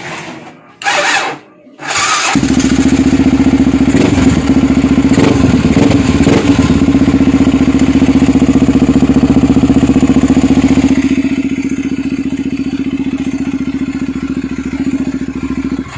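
Yamaha TT-R 250's single-cylinder four-stroke engine being started: a short burst of noise about a second in, then the engine catches at about two seconds and runs loudly. It drops to a quieter, steady run at about eleven seconds and cuts off abruptly just before the end.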